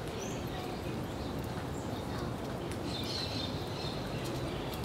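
Birds calling: a few short high chirps, one longer about three seconds in, over a steady low rumble, with scattered faint high clicks.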